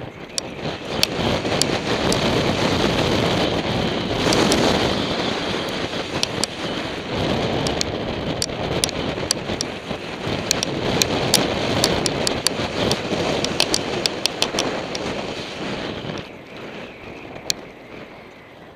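Wind noise on the microphone and knobby tyres rumbling over a dry dirt trail as a tandem mountain bike descends at speed, with many sharp clicks and rattles as it goes over bumps. The noise eases off near the end.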